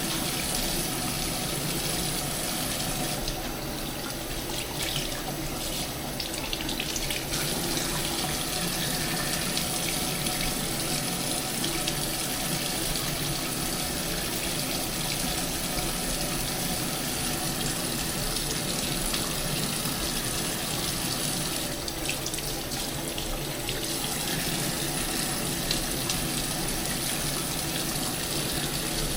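Hot water running steadily from a bathroom sink tap while a face is washed under it; the hiss of the stream dips briefly twice.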